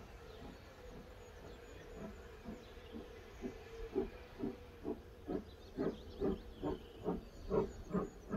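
Exhaust beats of GNR(I) No. 131, a 4-4-0 steam locomotive, working under load as it leaves Galway. The chuffs come about two and a half times a second and grow steadily louder as it approaches.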